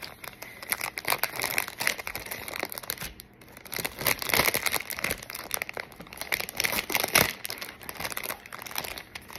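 Plastic packaging being handled and opened by hand, crinkling and rustling irregularly, with a short lull about three seconds in.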